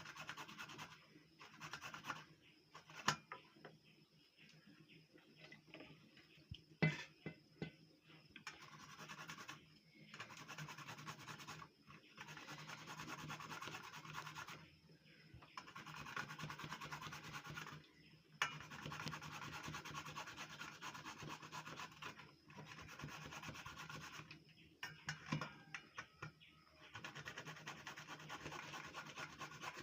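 Carrots being grated by hand on the small holes of a metal grater: runs of quick rasping strokes lasting a few seconds each, broken by short pauses. A couple of sharp knocks come in the quieter first part.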